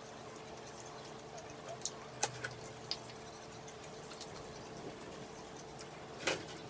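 Eating sounds from chicken McNuggets: a few short, sharp mouth clicks and smacks around two to three seconds in and a louder one near the end, over a faint steady hum.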